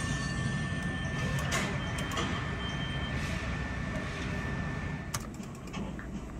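Queen of Virginia skill game machine playing its win sound as the points total counts up: a steady high electronic tone over a low room hum, stopping about five seconds in, followed by a few sharp clicks as the screen changes.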